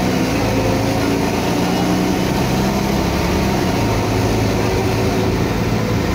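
Mercedes-Benz O500UA articulated bus's OM 457 straight-six diesel engine running steadily, heard from inside the passenger cabin, its note shifting slightly in pitch.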